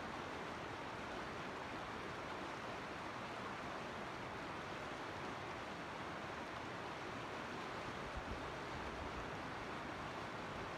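Mountain creek flowing, a steady even rush of water, with a couple of brief low bumps of wind on the microphone near the end.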